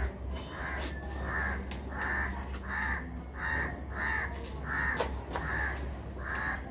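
Crows cawing over and over, about ten short caws at a steady pace of roughly one and a half a second, over a steady low hum.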